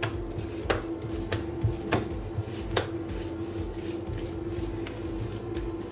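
Hands rolling and pressing soft bun dough into a log on a granite countertop, with about five sharp clicks in the first three seconds over a steady faint hum.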